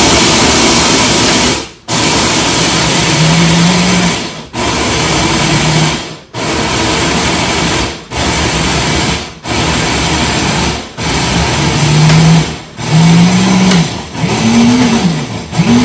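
Countertop blender run in short pulses of about one to two seconds, around nine times, with brief breaks between, churning a thick puppy mush of kibble, baby oatmeal and goat milk.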